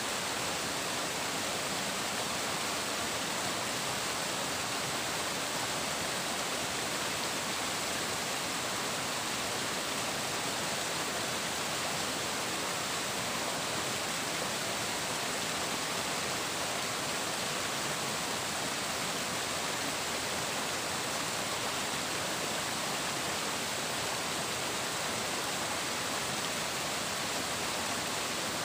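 Flowing water rushing steadily, an even hiss-like noise that does not change, with no birdsong or other events.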